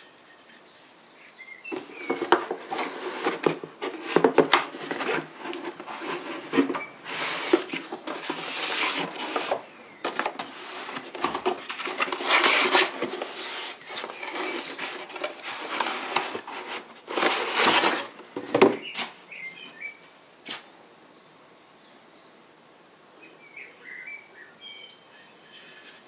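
Cardboard box handled while a heavy drilled-and-slotted steel brake rotor is slid out of it: a long run of scraping and rustling with a few sharp knocks. It stops a little over halfway through, leaving a few faint short chirps near the end.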